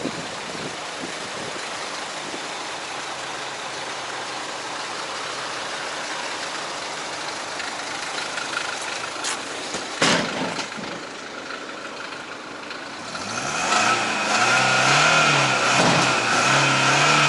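Mercedes-Benz E 220 with a steady rush of air from its air-conditioning blower, then a sharp knock about ten seconds in. In the last few seconds the engine is revved up and down several times, rising and falling in pitch.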